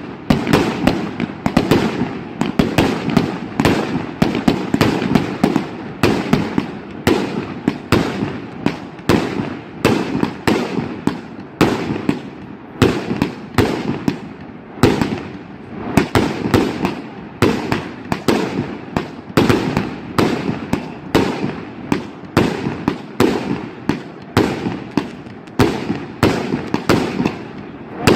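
A 49-shot fireworks cake (repeater box) firing shot after shot: a continuous, irregular run of sharp bangs, about two or three a second, each with a short echoing tail.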